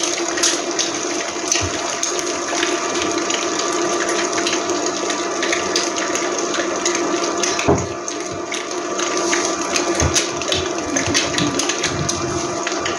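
Egg frying in hot oil in a non-stick pan: a steady sizzle with frequent small pops and crackles, over a steady hum.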